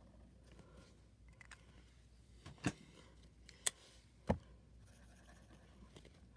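A felt-tip marker scratches faintly on paper as it draws. Three sharp clicks or taps come about halfway through.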